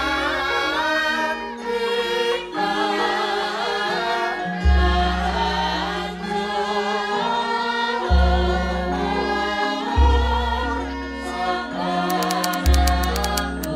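Background music: a choir of voices singing over long held low bass notes. A fast run of clicks starts near the end.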